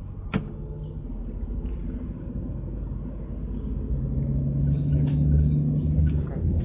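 Motor vehicle engine rumbling low and steady, growing louder for a couple of seconds near the end, with one sharp click about half a second in.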